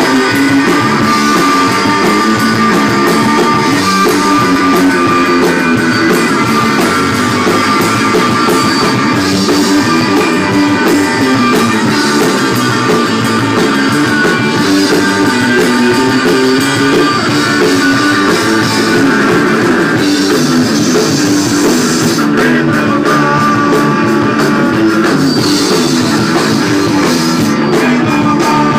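Live rock band playing loud: electric guitar, electric bass and a Mapex drum kit, with no singing.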